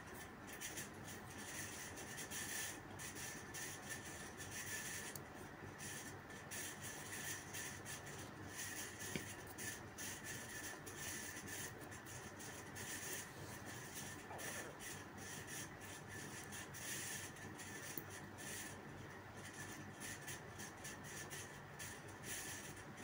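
Faint rubbing and scraping of a spatula stirring sliced onions and spices in a metal kadai.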